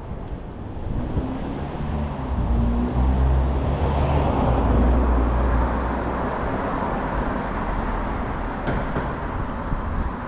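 A motor vehicle passing along the street: a low engine hum and tyre noise build up, are loudest about four to five seconds in, and fade away.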